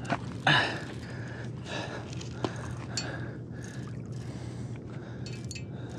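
A short, loud gasp of breath about half a second in, from an angler straining to fight a hooked sturgeon. After it come a few faint clicks over a steady low hum.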